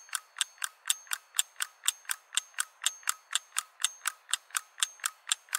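Clock-like ticking sound effect: even, sharp ticks at about three and a half a second, steady throughout.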